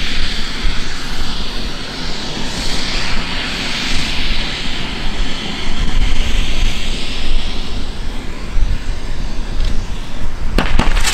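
Ground fountain firework spraying sparks with a steady rushing hiss. A few sharp cracks come near the end.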